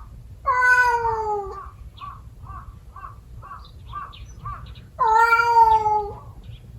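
Cat yowling twice, two long drawn-out cries with a slightly falling pitch: the threat calls of a cat fight standoff. A faint short chirp repeats about twice a second between them.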